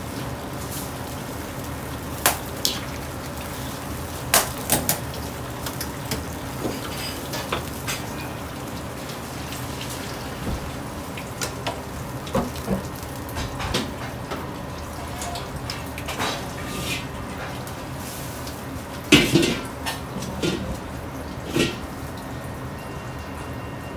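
Irregular metal clanks and scrapes of a wire strainer and ladle against a large carbon-steel wok and steel pots as deep-fried pork is lifted out of the oil and drained, with a loud clatter about two-thirds of the way through. Under it runs a steady rush from the gas wok burner and a running tap.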